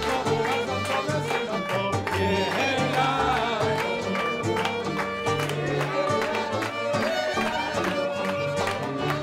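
Music with a steady beat and a moving bass line.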